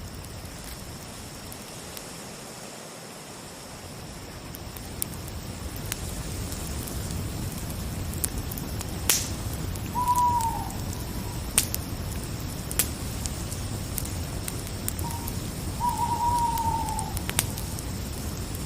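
Fire crackling, with a steady low rumble and scattered sharp pops, under a faint steady cricket trill. Twice a call sounds, about halfway and again near the end: a held note that drops at its end.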